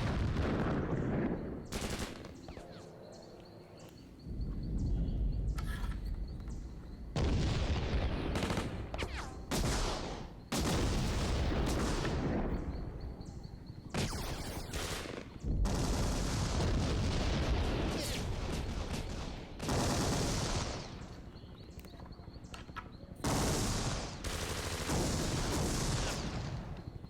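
Gunfire sound effects: bursts of machine-gun and rifle fire come and go every few seconds, with short quieter gaps between them.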